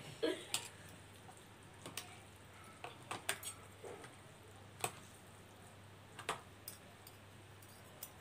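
Metal forks and spoons clinking and scraping against plastic bowls of noodles while eating: faint, scattered ticks, about a dozen over the stretch.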